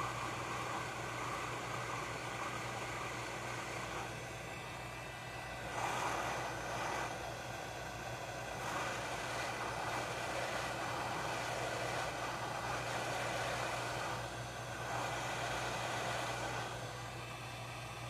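Hot air rework station blowing: a steady rush of air over a low hum, swelling briefly a few times. It is heating the circuit board to melt the solder and seat a new USB charging port.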